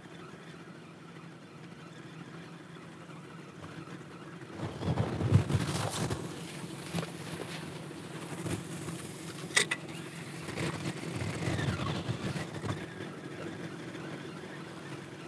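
A steady low hum like a distant motor. From about five seconds in there is irregular rustling and knocking, with one sharp click near the middle.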